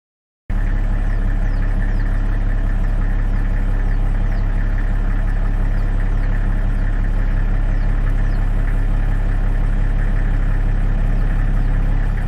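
Motor vehicle engine idling steadily, a low hum with a rumbling body, with faint short high chirps repeating about once a second.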